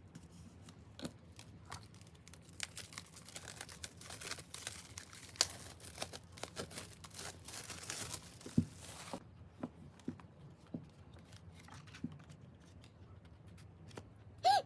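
Packaging being torn open and crinkled by hand, with a continuous rustling tear from about two and a half seconds in until about nine seconds, and scattered clicks and taps of handling before and after.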